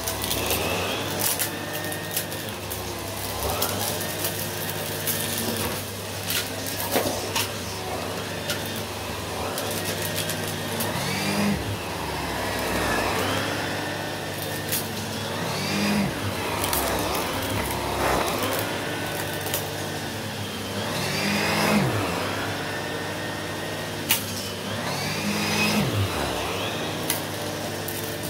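Henry Extra canister vacuum running with its turbo brush head being worked back and forth over a shaggy rug. It is a steady motor drone whose pitch rises and falls every four or five seconds with the strokes, with occasional sharp ticks.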